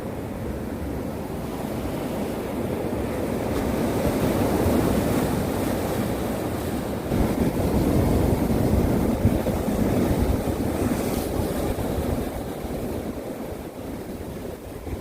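Winter sea waves breaking and washing on the shore, one swell building about a third of the way in, loudest past the middle, then easing off, with wind buffeting the microphone.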